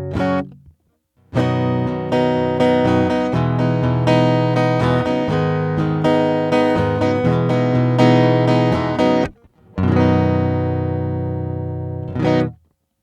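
Gretsch Jim Dandy dreadnought acoustic guitar heard through its DeArmond ToneBoss pickup plugged directly into a recorder, giving the raw, unamplified pickup sound. Chords are strummed and picked in phrases, with short breaks about a second in and about nine seconds in, and the last chord dies away near the end.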